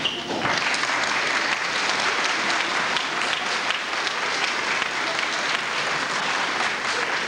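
Audience applauding: a steady patter of many hands clapping that begins about half a second in.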